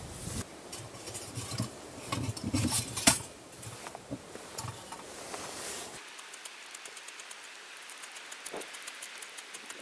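Metal clinks and knocks of a small folding camp stove and pot being handled, with a sharp clack about three seconds in the loudest. After about six seconds the handling stops, leaving a quieter hiss with rapid faint ticks.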